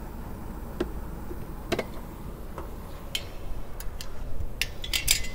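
Scattered sharp clicks and knocks, roughly one a second with a quick cluster near the end, as a windshield wiper arm is wiggled and worked off its pivot stud. A low steady rumble sits underneath.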